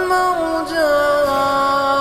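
A reciter's voice chanting Quran recitation (tajwid), drawing out one long melodic note that steps down in pitch about two thirds of a second in and is then held steady.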